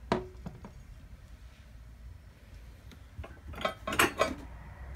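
Ornaments and dishes being set down and picked up on a hard surface: a sharp knock at the start with two lighter clicks after it, then a cluster of clinks and knocks from about three to four and a half seconds in.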